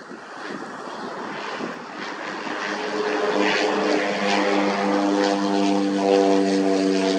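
Cessna Grand Caravan's single turboprop engine and propeller on landing approach, growing steadily louder as the plane nears, with a steady multi-tone hum coming through from about three seconds in.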